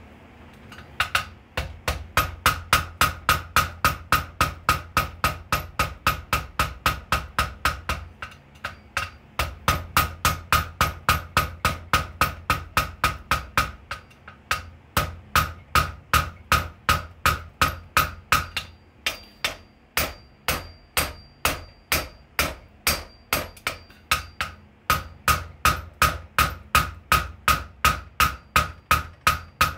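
Blacksmith's hand hammer striking red-hot steel held in tongs on an anvil, about three blows a second, each with a short ringing note. The hammering stops briefly a few times, and for a few seconds in the middle the blows are lighter and ring less.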